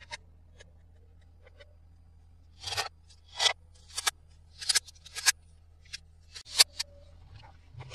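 Toy packaging being handled and opened: a few light clicks, then from about two and a half seconds in a run of short crinkling, scraping strokes, one or two a second.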